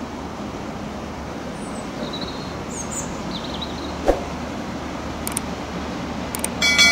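Steady low engine drone, with a few faint bird chirps partway through and one sharp click about four seconds in. Near the end, two soft clicks and then a ringing chime.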